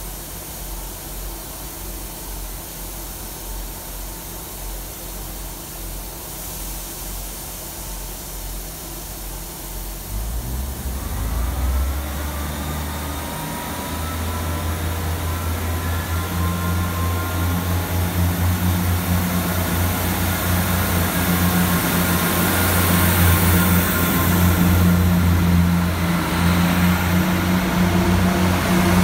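Class 158 diesel multiple unit idling at the platform with a steady low hum. About ten seconds in its engines open up, and the sound grows steadily louder with a slowly rising whine as the unit pulls away and runs past close by.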